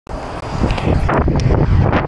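Wind buffeting the microphone of a moving bicycle, a steady low rumble with a few short knocks.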